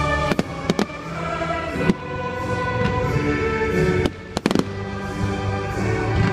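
Fireworks going off over music played for the display: a few sharp bangs in the first two seconds and a louder cluster of bangs about four and a half seconds in.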